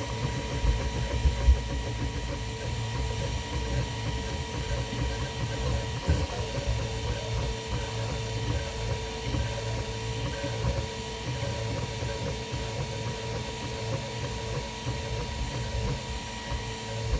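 Toybox 3D printer running mid-print, just resumed: a steady motor hum with a thin constant whine over it.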